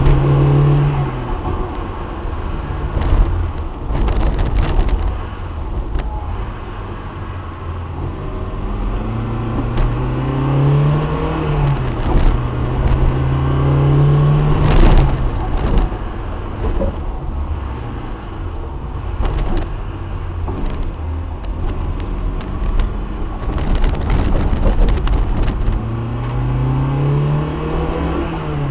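Car engine running under way, its note rising as it accelerates and dropping back several times, over steady road rumble. Scattered knocks and rattles from the car run through it.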